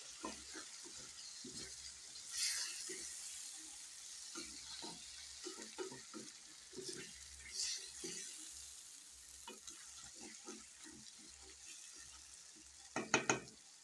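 Wooden spoon stirring diced potatoes through a frying tomato-and-spice mixture in a metal pan: a steady sizzling hiss with frequent short scrapes and soft knocks of the spoon against the pan, a few louder ones about a second before the end.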